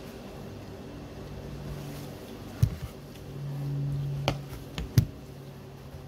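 A steady low hum runs throughout, swelling for about a second near the middle. Over it come a few sharp knocks and clicks, about two and a half seconds in and again in a quick cluster toward the end, from hand-shaping dough balls and setting them in a baking pan.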